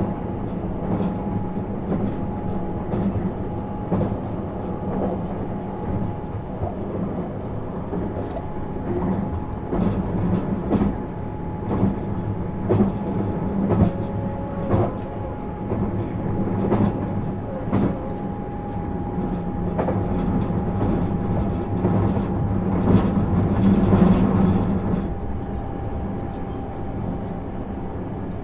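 JR 651-series electric train running, heard from inside the carriage: a steady rumble with a faint held tone and many short clicks from the wheels over the track, swelling louder a little after two-thirds of the way through.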